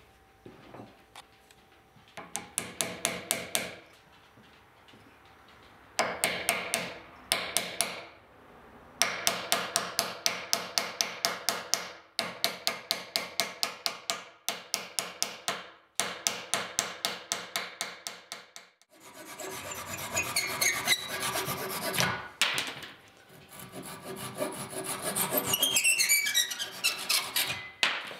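Small hammer tapping wooden wedges into a glued wooden joint in quick runs of light strikes, several a second, with short pauses between runs. In the last third, the taps give way to two longer stretches of rubbing, sawing noise, as of the wedge ends being cut off.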